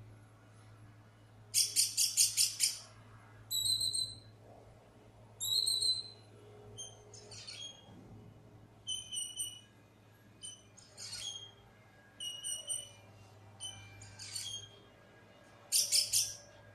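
A black bird calling in a varied series. A quick run of four or five loud, sharp notes comes near the start and again near the end, with clear whistled notes and short chirps in between.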